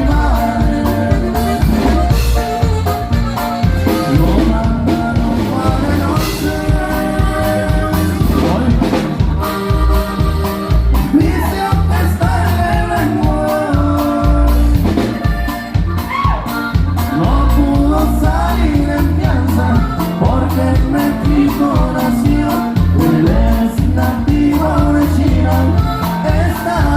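Norteño band music: an instrumental passage of a corrido, with pitched melody lines over a steady bass and drum beat.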